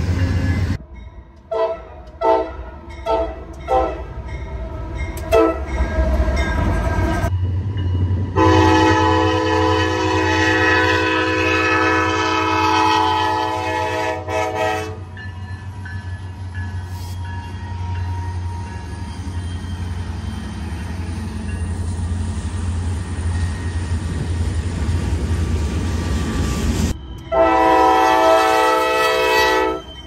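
Locomotive air horn sounding a horn salute: several short blasts, then one long blast of about six seconds, over the low rumble of the passing train. Another horn blast comes near the end.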